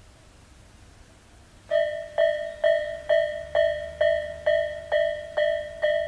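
Japanese railway level-crossing electronic warning bell of the Tobu 'A' type starting up about a second and a half in, then ringing a steady ding-ding about two strokes a second, each stroke fading before the next. It signals that a train is approaching the crossing.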